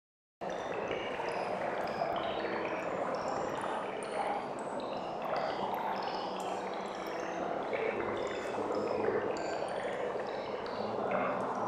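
Murmur of a crowd of many people talking at once, starting about half a second in, with many short high pings scattered through it like glasses or cutlery clinking.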